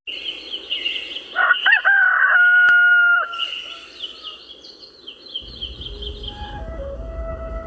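A rooster crows once, loud, about a second and a half in, holding the call for nearly two seconds, over the chirping of small birds. A low rumble comes in past the halfway point.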